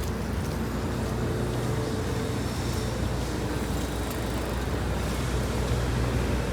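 Road traffic on rain-wet city streets: vehicle engines running with a steady low hum under a continuous haze of road noise.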